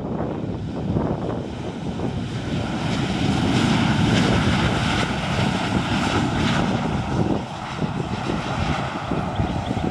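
Airplane engine noise, growing louder to a peak about four seconds in and then easing off a little, as an aircraft moves past the airport.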